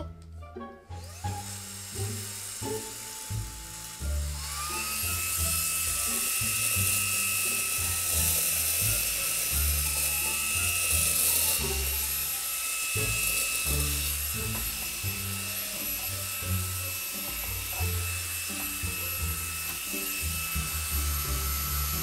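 Xiaomi Mi Vacuum Cleaner mini, a cordless handheld vacuum, running. Its motor starts with a faint whine, steps up about four seconds in to a steady, high whine with airy hiss on its high-power setting, then winds down at the very end. It is sucking up grains of rice.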